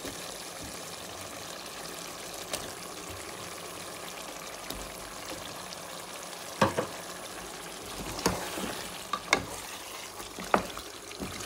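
Spiced chicken sizzling in oil in a pot as potato chunks are stirred in with a wooden spatula. In the second half the spatula knocks sharply against the pot several times. The chicken has been fried down until the oil rises to the top.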